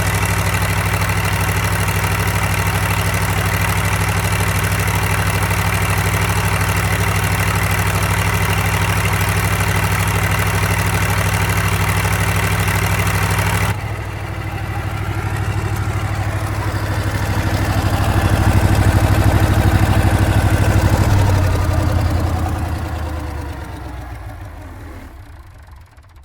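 Perkins naturally aspirated V8 diesel engine of a generator set running steadily. About fourteen seconds in, the sound changes abruptly and the engine winds down, falling in pitch and fading away as it stops.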